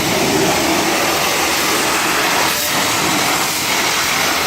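Self-serve car wash high-pressure wand spraying water into a car's engine bay: a loud, steady hiss of spray.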